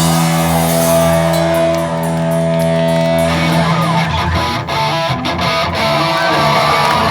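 Live rock band with electric guitar: a held chord rings steadily for about three seconds, then gives way to busier strummed guitar.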